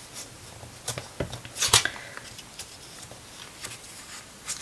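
Hands handling the glossy pages of a large hardback art book: a few short paper rustles and taps, the loudest a little under two seconds in.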